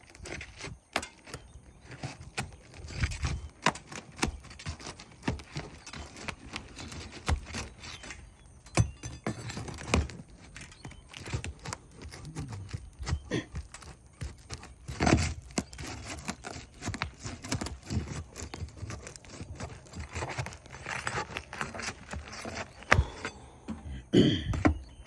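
Irregular knocks, taps and scrapes of hand work on an asphalt-shingle roof, with a few louder knocks near the middle and near the end.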